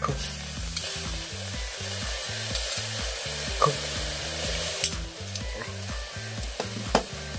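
Butter and shellfish juices bubbling and sizzling inside turban shells grilling over charcoal in a shichirin, with three sharp pops.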